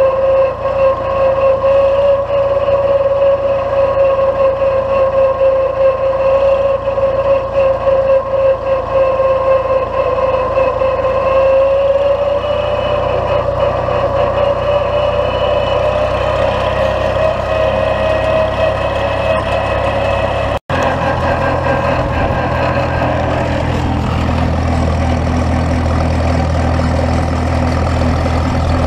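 Case Comfort King tractor engine running under way, with a steady high whine over the low engine drone that rises slightly in pitch about halfway through. After a brief cut about 20 seconds in, a tractor engine runs on with a deeper, steadier drone.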